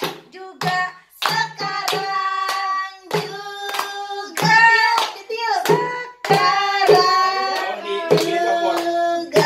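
People, a child among them, singing a birthday song while clapping in time, about two claps a second.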